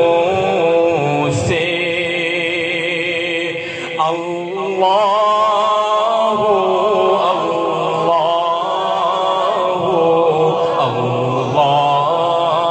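A man's voice chanting a melodic religious recitation into a microphone, amplified through a sound system: long held notes with a wavering pitch, with a brief break about four seconds in.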